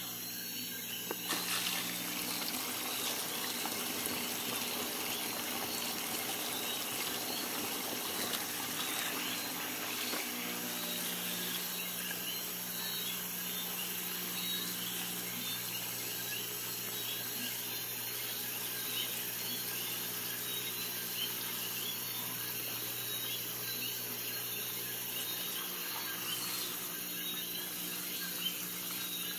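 Aquarium sump being run by its new pump: water pouring and bubbling through the glass chambers over a steady electrical hum. The flow comes on suddenly about a second in, then runs evenly.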